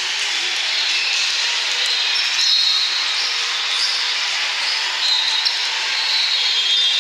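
Steady din of a large, echoing sports hall with several volleyball games going on: a blur of crowd noise with short, high sneaker squeaks on the court floors.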